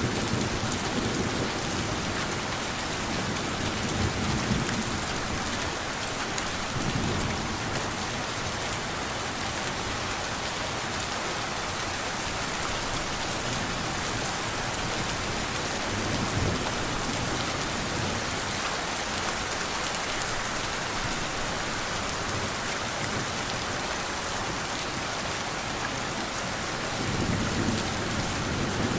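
Steady rain falling, with low rumbles of distant thunder rolling in several times, the strongest near the end.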